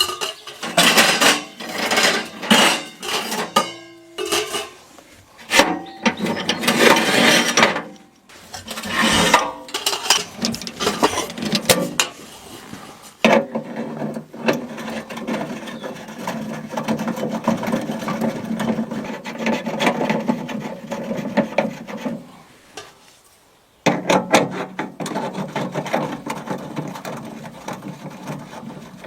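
Irregular scraping, rubbing and knocking of hand building work, in quick strokes with a steadier rubbing stretch in the middle and a short pause near the end.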